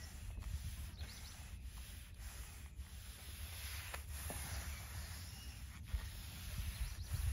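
Bristles of a wide deck-oiling brush rubbing over hardwood deck boards, a soft steady hiss, with a low rumble underneath.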